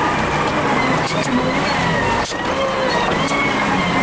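Volvo BM 4300 wheel loader's diesel engine working as the bucket pushes and levels dirt, its pitch rising and falling every second or so, with a few sharp clicks. The sound is sped up with the fast-motion footage.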